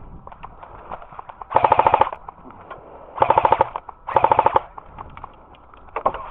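Airsoft automatic electric rifle firing three short full-auto bursts of about half a second each, a fast even rattle of shots, with scattered fainter single pops of other airsoft guns around it.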